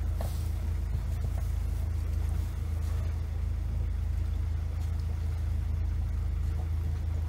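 Motorboat engine running steadily under way, a low even drone.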